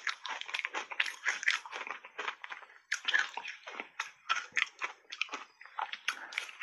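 Chewing and crunching a block of ice coated in matcha powder: dense crackling crunches with a short pause about two and a half seconds in. A fresh bite comes near the end.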